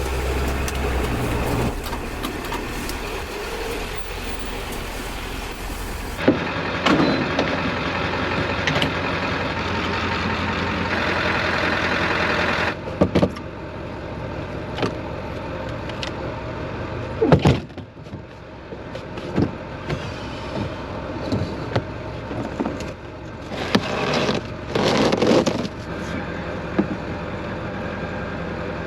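Diesel pickup truck running, with steady engine and road noise, broken by a few sharp knocks and clunks: one loud one about halfway through and a cluster near the end.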